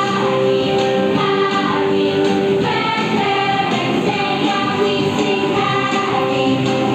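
A song with singing over backing music, playing steadily at dance volume.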